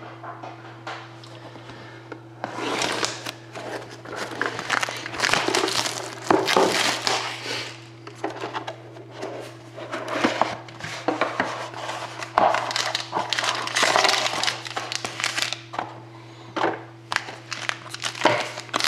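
Plastic wrapping crinkling and tearing as a sealed box of hockey trading cards is unwrapped and opened, in irregular handling bursts starting a couple of seconds in.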